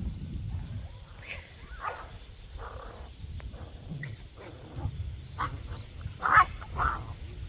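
Dogs yipping and barking in scattered short calls, the loudest two about six and seven seconds in.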